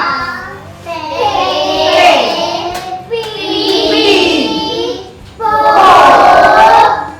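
Children's voices chanting in unison in a sing-song way, as in a classroom phonics drill. There are three drawn-out utterances of about two seconds each.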